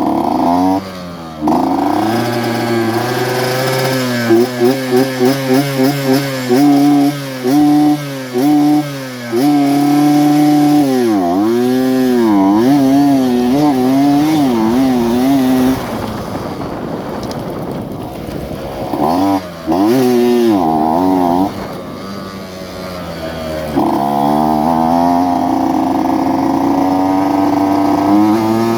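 Modified two-stroke underbone motorcycle with a Yamaha F1ZR engine, revving up and down with a run of quick throttle blips, swooping falls and rises in pitch, a quieter low-revving patch mid-way, and a high, steady held rev near the end.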